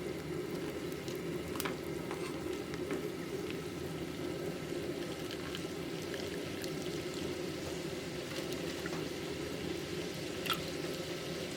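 Pot of water boiling on the stove, a steady bubbling, with a few light clicks of a utensil against the pot.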